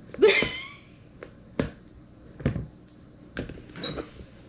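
A woman's short wordless exclamation near the start, then a few sharp knocks about a second apart: a small strainer knocking against a plastic mixing bowl as cooked spaghetti squash is pressed to squeeze out its liquid.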